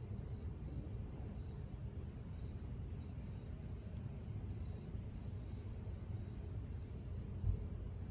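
Steady chorus of crickets trilling, with a low rumbling noise underneath and one soft low thump near the end.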